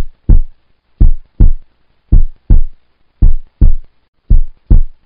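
Heartbeat sound effect: short low double thumps, about one pair a second, marking the seconds of a quiz countdown timer.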